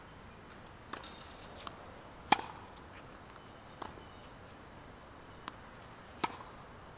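Tennis rally: a string of sharp pops from rackets striking the ball and the ball bouncing on the hard court, six in all, the loudest about two seconds in.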